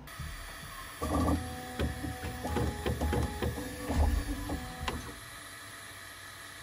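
Bambu Lab P1S 3D printer's stepper motors whirring through a series of short moves at shifting pitches, with a few clicks, as the toolhead homes and runs auto-calibration. The motion runs from about a second in until about five seconds in, then settles to a quieter steady hum.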